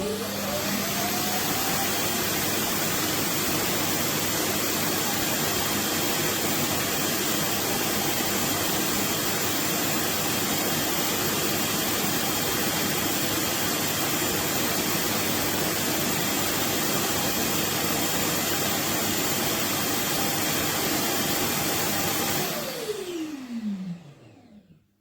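Suction motor of a MONSGA robot vacuum set, a 5000 Pa unit with a self-emptying station, running at full power. A rising whine shows it spinning up at the start; it then runs loud and steady for about twenty seconds and winds down with a falling whine near the end.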